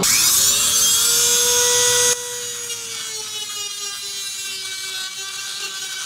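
A Dremel Moto-Tool rotary tool with a grinding-stone bit spins up to a high, steady whine. About two seconds in it drops suddenly to a quieter whine whose pitch sags a little as it grinds out the deadbolt hole in the strike, where the bolt was catching.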